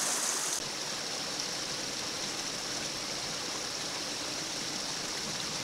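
Water rushing steadily through a breach in a beaver dam, a constant stream-like noise; its brighter hiss drops away about half a second in.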